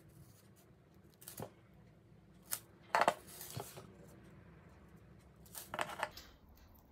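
Small metal jewellery parts (ball chain, rings) and needle-nose pliers clinking and clicking against each other and a wooden desktop, in a few short clusters of clinks, the loudest about three seconds in.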